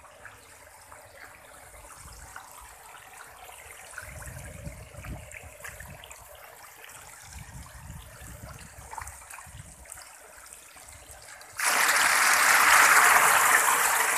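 Faint water trickling, then about three-quarters of the way through a sudden loud churning splash as a densely stocked tarpaulin pond of catfish thrash at the surface for thrown pellet feed.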